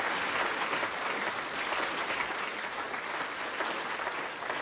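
Audience applauding: a dense, even clapping.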